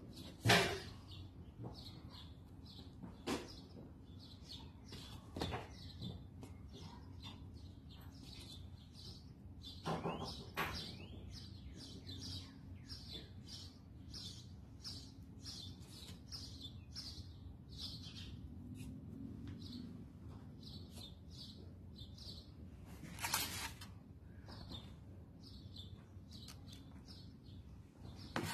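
Small birds chirping steadily outside, in short high calls. A few scattered knocks and clicks come from food being handled on a table, the loudest right at the start and again about two-thirds of the way through.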